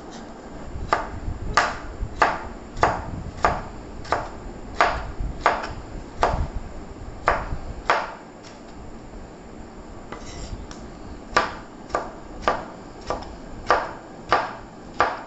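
Kitchen knife slicing tomatoes on a wooden chopping board: a steady run of knocks as the blade meets the board, a bit under two a second, with a pause of about three seconds midway before the chopping resumes.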